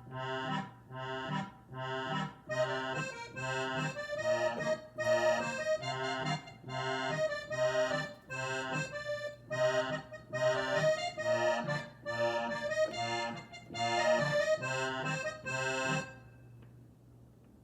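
Roland FP-30 digital piano playing its accordion voice: a left-hand stride pattern of alternating bass notes and chords in an even oom-pah rhythm under a melody. The playing stops about two seconds before the end.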